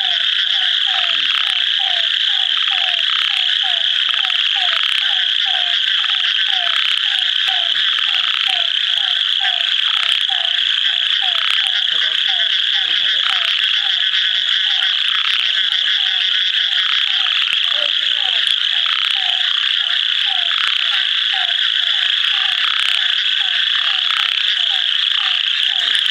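Ornate narrow-mouthed frog (Microhyla ornata) calling: short notes repeated steadily about twice a second, over a continuous high-pitched chorus.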